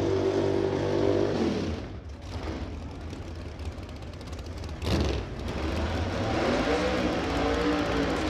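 Drag-racing Camaro's engine running at high revs, its pitch falling about a second in and the sound dropping back. A sharp loud crack about five seconds in, then engine tones waver up and down near the end.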